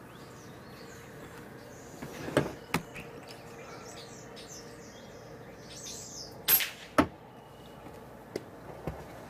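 FX Royale PCP air rifle firing: a sharp crack about two and a half seconds in and another at about six and a half seconds, each followed within half a second by a smaller knock. Small birds chirp faintly throughout.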